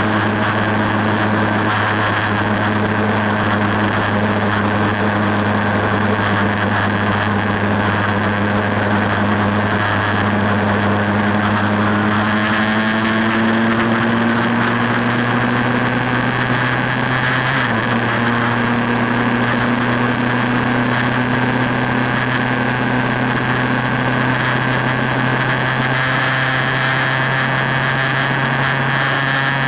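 Motorcycle engine running steadily at highway cruising speed under a constant hiss of wind noise; the engine note climbs gradually from about twelve seconds in.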